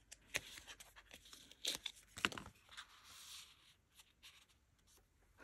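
Paper ephemera and sticker sheets being handled: faint rustling with light clicks and taps, busiest in the first three seconds or so and sparser after.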